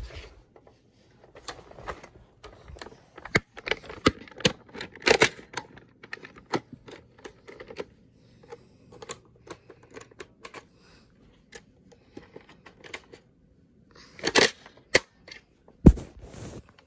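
Irregular plastic clicks and rattles from Nerf foam-dart blasters and darts being handled, with a denser run of clicks about 14 seconds in and a single sharp knock near the end.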